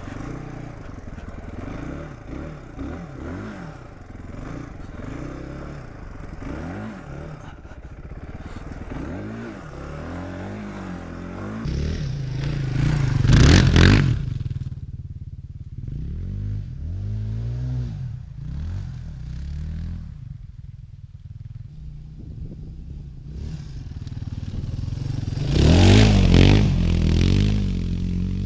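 1999 Suzuki DR350's single-cylinder four-stroke engine revving up and down on a test ride, its pitch rising and falling with the throttle and gear changes. It grows loudest twice, about halfway through and near the end.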